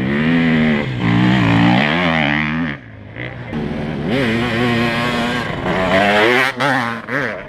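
Off-road dirt bike engine revving hard, its pitch climbing and dropping with throttle and gear changes, with a brief let-off about three seconds in and quick blips of throttle near the end.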